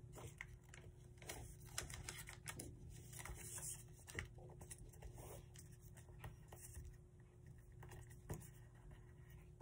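Faint rustling and crinkling of a sheet of origami paper being folded and creased by hand, with scattered soft taps and scrapes, over a low steady hum.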